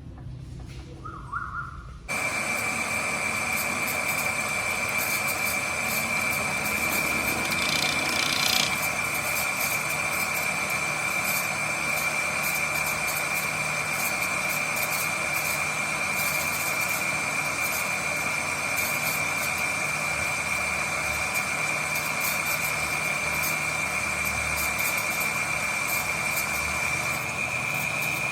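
A machine starts abruptly about two seconds in and runs steadily: a strong, steady high whine over a loud hiss.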